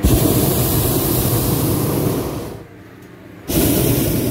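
Hot air balloon's propane burner firing in two loud blasts. The first starts abruptly and lasts about two and a half seconds; the second starts abruptly about a second later and lasts about a second.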